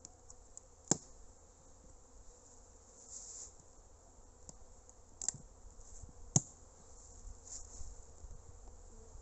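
Honeybees buzzing around a wooden hive, a faint steady hum. Three sharp knocks, about a second in and twice more a little past halfway, from gloved hands and a hive tool working the hive's wooden cover.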